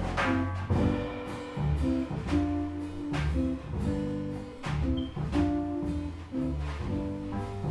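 Jazz trio playing: a hollow-body electric guitar picks single-note lines over walking bass and drums with cymbal strokes.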